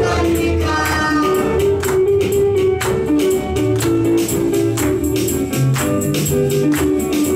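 Live gospel praise music: a quick, steady beat with jingling high percussion over held bass and keyboard notes, with voices singing in the first second or so.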